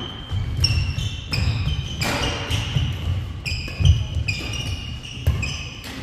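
Badminton play on an indoor wooden court: sneakers squeaking in short, repeated chirps, with sharp hits and low thuds of footwork between them.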